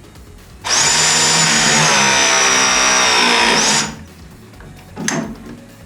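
Cordless power tool motor running for about three seconds, its high whine sinking slightly in pitch under load, then stopping; two short sharp clicks follow.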